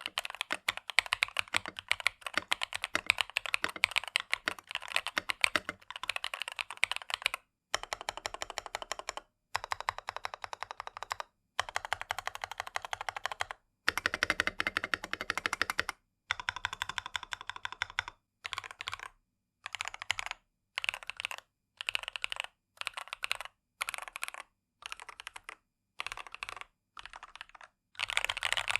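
Typing on an Epomaker Brick 87 steel-plate mechanical keyboard with Peace Lily switches: a fast, steady stream of keystrokes at first, then shorter runs broken by brief pauses, and in the last third short bursts of keypresses about a second apart.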